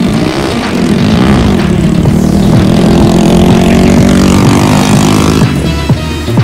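Go-kart engine revving hard as the kart accelerates away, its pitch rising and falling. Near the end, music with a steady beat takes over.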